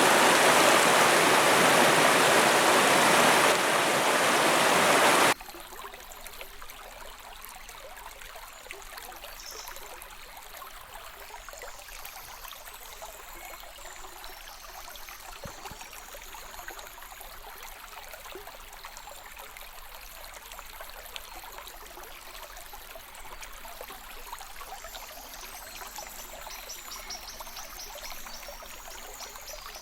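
Spring river rushing loudly for about five seconds, then cutting off suddenly to a much quieter, steady flow of water.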